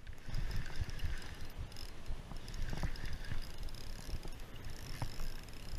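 Fishing reel being cranked to bring in line, a faint mechanical whirr with a few light clicks, over a low rumble of wind on the microphone.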